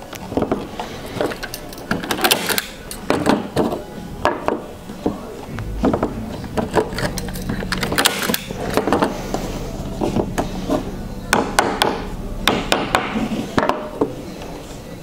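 Hand staple gun firing staples through linen canvas into a wooden stretcher frame: an irregular series of sharp clacks, some in quick pairs, as the canvas edge is fastened staple by staple.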